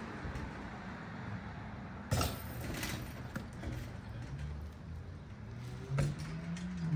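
A basketball thumps twice, about four seconds apart, over a low steady hum.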